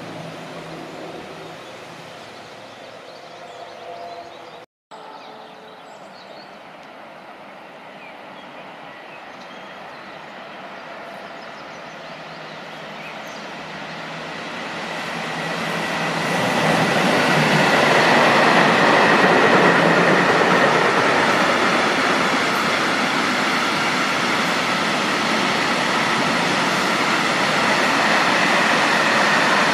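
Freight train passing close behind a Bombardier TRAXX electric locomotive: the rolling noise grows over a few seconds, then stays loud and steady as the long rake of wagons goes by, with a high tone running through it. Before it, a quieter distant train, cut off abruptly about five seconds in.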